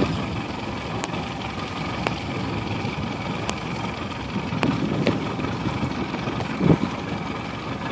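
Boat engine idling steadily, with a few faint clicks over it.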